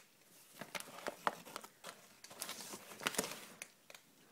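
Plastic dry-cat-food bag rustling and crinkling as it is handled, in irregular crackly bursts with a few sharper crackles.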